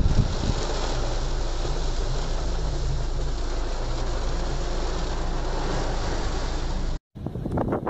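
Heavy storm rain and wind on a car, heard from inside the cabin as it drives, over a steady low hum of engine and road. The sound cuts out abruptly near the end, and a gusty, wind-buffeted recording starts.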